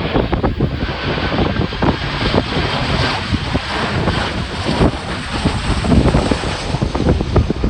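Strong, gusty wind buffeting the microphone in loud, uneven thumps, over the rumble of a jet airliner landing.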